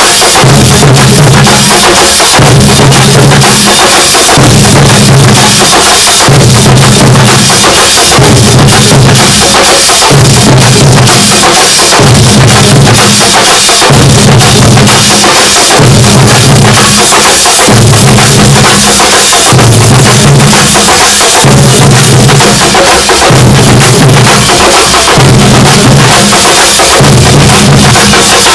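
Very loud thambolam percussion band playing many drums together in a continuous driving rhythm, with a deep low pattern repeating about every second and a half.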